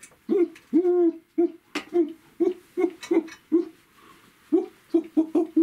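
A puppeteer's voice wordlessly vocalising a tango tune in short 'da-da' syllables: one held note about a second in, then a quick run of short, evenly spaced notes.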